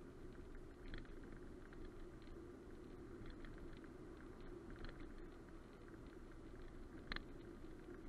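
Steady low road and tyre noise inside a moving car's cabin, with a few faint ticks, the sharpest about seven seconds in.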